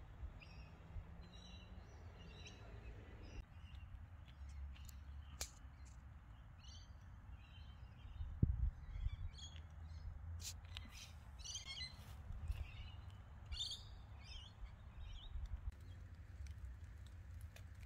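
Outdoor birdsong: small birds chirping and calling in short, repeated phrases at intervals, over a steady low rumble, with a few sharp clicks.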